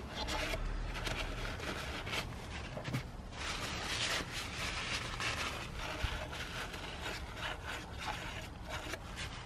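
A cloth rubbing and scraping in uneven strokes as it wipes a thin film of oil out of the plastic crankcase breather housing on the engine's valve cover.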